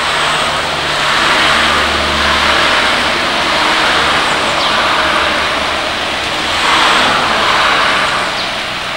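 Cars passing on a rain-wet road: tyres hissing on the wet asphalt over a low engine hum, the sound swelling twice as vehicles go by.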